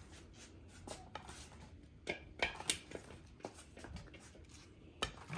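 Faint scattered clicks and brief rubbing of a solid rubber scooter tire being pushed into its seat on the wheel rim.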